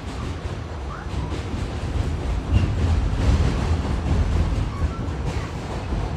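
R46 subway train running along the track: a steady low rumble of wheels and running gear that grows louder about two seconds in, with faint clicks and a few brief squeaks.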